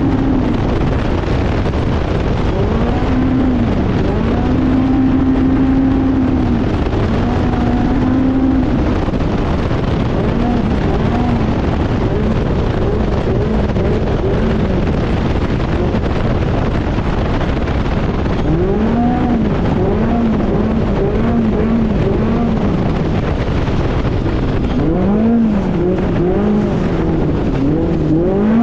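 Off-road desert race vehicle's engine driven hard, its pitch rising and falling over and over as the throttle comes on and off, over a constant heavy rumble.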